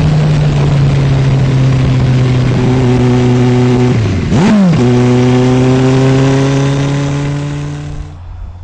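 Turbocharged Suzuki Hayabusa's inline-four engine pulling hard under way, heard from the rider's seat with heavy wind noise. The note holds steady, dips and jumps briefly about halfway through, then climbs slowly, and the sound drops away near the end.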